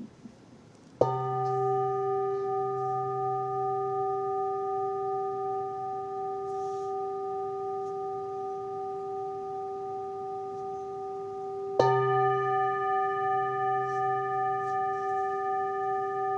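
A singing bowl struck twice, about a second in and again about eleven seconds later. After each strike it rings on in a long, steady tone of several pitches that wavers slowly in loudness.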